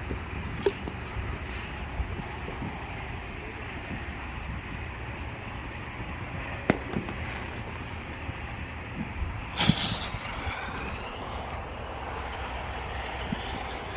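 Whistling artillery shell fired from a cardboard mortar tube: a steady low background rumble, then about ten seconds in a single loud bang as the lift charge launches the shell, followed by a faint whistle as it climbs.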